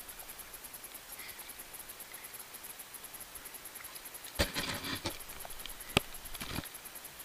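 Water splashing and sloshing right against a helmet camera floating at the surface, in a burst a little over four seconds in and again just before the end, with a single sharp knock between them.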